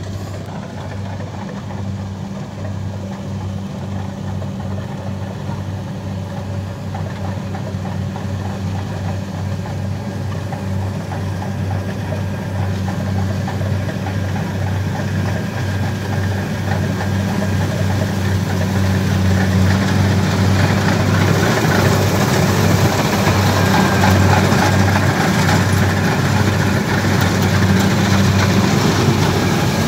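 Kubota 70 Plus rice combine harvester running steadily while cutting rice, a deep engine hum with machinery clatter on top, growing louder as the machine comes closer.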